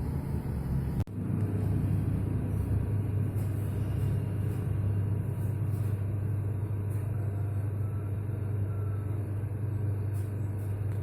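A steady low rumble with a brief break about a second in.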